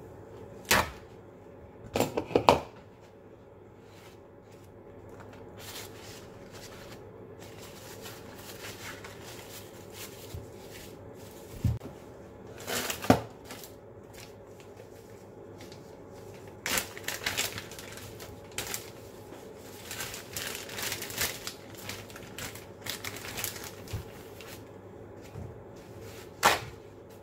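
Kitchen handling noises: a few sharp knocks as things are set down on the stainless steel counter and cutting board, and a long stretch of plastic bag crinkling in the second half.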